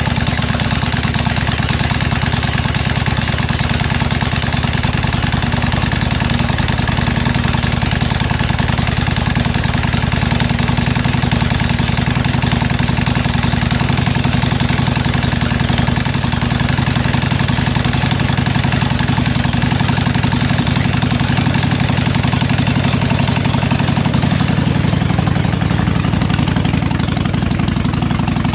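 Harley-Davidson big-twin V-twin motorcycle engine idling steadily, freshly started after sitting a while.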